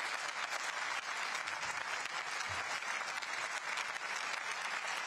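Members of parliament applauding: many hands clapping in a steady, dense patter that cuts off abruptly at the end.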